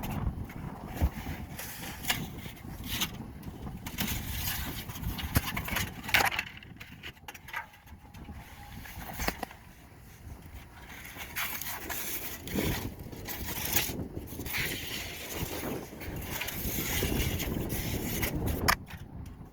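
Irregular clicks, knocks and scraping from a heating air duct, spaced unevenly over a low rumbling background.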